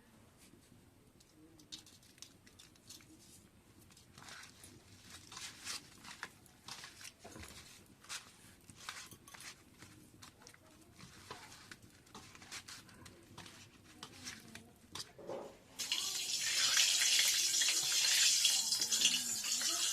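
Cooking oil in a pan: scattered small crackles and pops, then a loud, steady sizzle starts suddenly about four seconds before the end.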